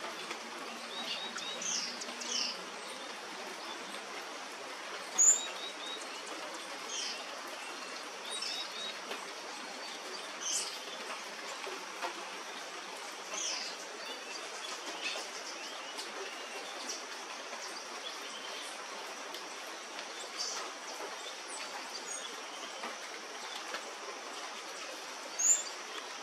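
Rainforest birds calling over a steady hiss: scattered short, high, falling calls every second or two, and two sharp high chirps, about five seconds in and near the end, that stand out as the loudest.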